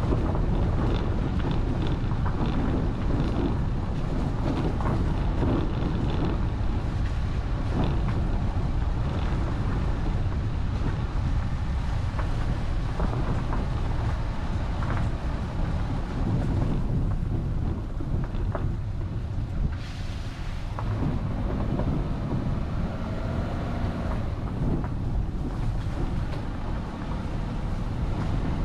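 A vehicle driving along a road, heard through a GoPro: a steady low rumble of the drive with wind buffeting the microphone. In the second half a faint pitched sound wavers up and down for a few seconds.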